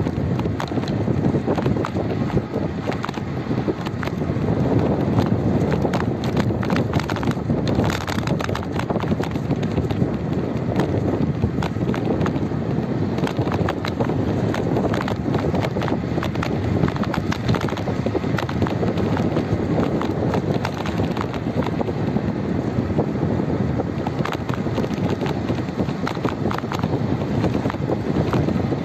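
Wind buffeting the microphone of a phone moving along a road, a steady low rumble, with many irregular clicks and rattles on top.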